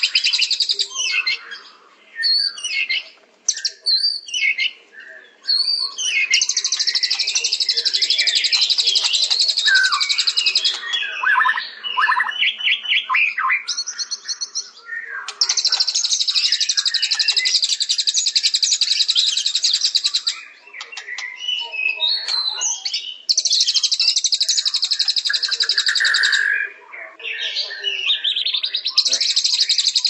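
A songbird singing: long, very fast, high trills lasting several seconds, broken up by varied chirps and whistled phrases.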